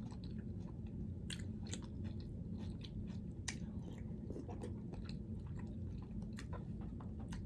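A person chewing food close to the microphone, with scattered soft wet clicks and smacks of the mouth over a low steady hum.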